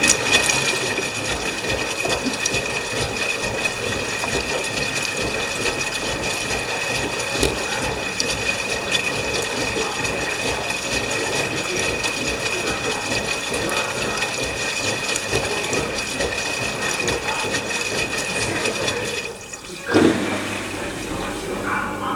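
LG washing machine filling with water for a rinse: a steady rush of water through the inlet valve, with a steady high hiss, that cuts off suddenly near the end and is followed by a single knock.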